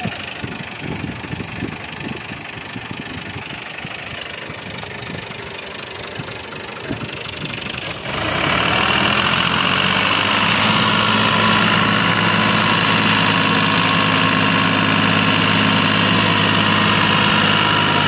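Tractor diesel engine running low and uneven, then about eight seconds in it is suddenly opened up to a loud, steady high-revving run. The engine is labouring to pull a loaded trolley that is stuck in soft ground.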